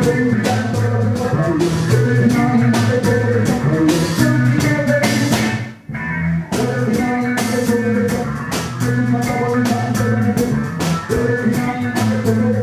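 Reggae music played by a band, with drum kit, guitar and bass in a steady beat and a brief drop-out about six seconds in.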